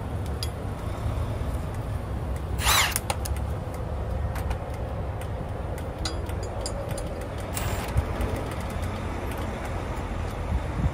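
Diesel truck engine idling with a steady low rumble, and a short sharp hiss about three seconds in.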